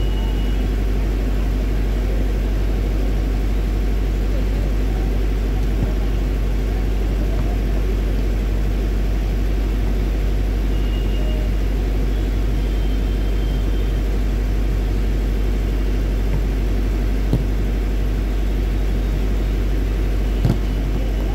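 A steady low rumble, with two sharp slaps near the end: a volleyball being struck during a rally.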